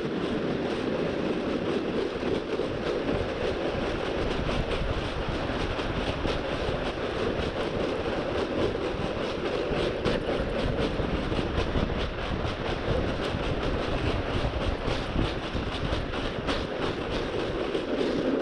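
Plastic pulk sled sliding over snow as a dog pulls it: a steady scraping rumble with dense rattling and small knocks from the hull and its load. It starts abruptly.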